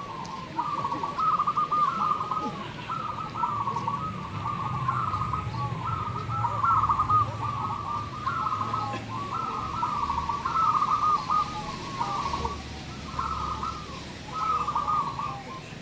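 Zebra doves (perkutut) cooing: warbling coo phrases repeat one after another with barely a break.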